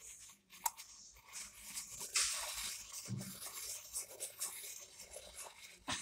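Irregular scratchy, crackling rubbing of plastic as fingers twist the agitator of a homemade miniature washing machine by hand, imitating the machine's load-weighing step before it fills.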